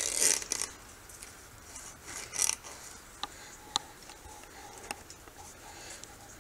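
Wire scraping and rasping as it is pulled tight and twisted around a metal post with pliers, with a few short sharp clicks of the wire and pliers in the middle.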